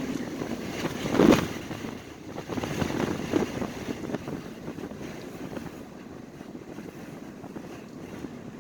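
Strong wind gusting and buffeting the microphone, loudest in a sharp gust about a second in, then easing to a steadier rush.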